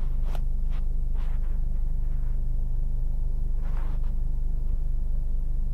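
Car engine idling, a steady low hum heard from inside the cabin, with a few faint brief sounds from outside.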